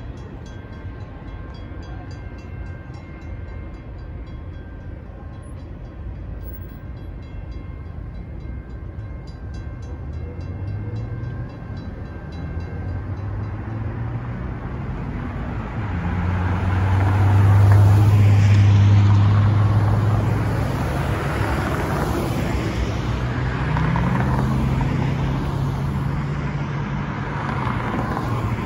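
Railroad crossing bell ringing in a quick steady rhythm, stopping about 13 s in as the crossing gates lift. Road traffic then starts across the tracks: car engines accelerating and tyres passing, loudest around the middle with a low engine hum.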